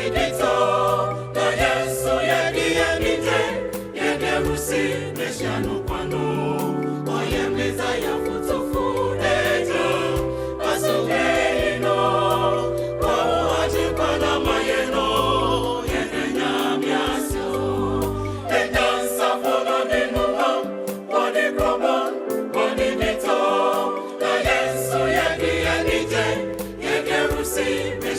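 Gospel choir singing with instrumental backing; the bass drops out for a few seconds past the middle and then returns.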